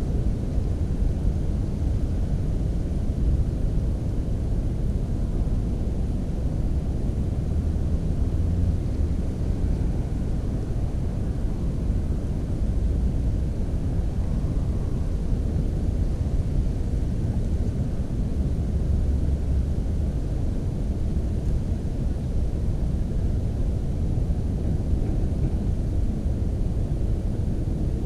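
Steady low rumble of wind buffeting the microphone, with no distinct events.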